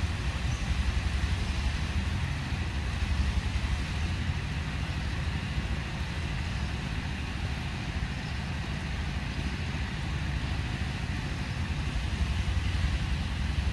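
Steady low rumble of wind buffeting the microphone outdoors, over an even background hiss.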